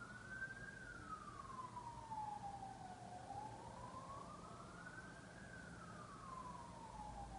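A wailing siren, its pitch gliding slowly up and falling back down, one full sweep about every five seconds, over a low steady hum.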